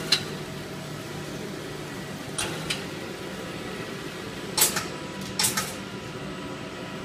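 Kallfass Universa 400 shrink-wrapping side sealer running with a steady mechanical hum, broken by several short, sharp hissing clacks, mostly in pairs, from its sealing and film-handling action as packs pass through.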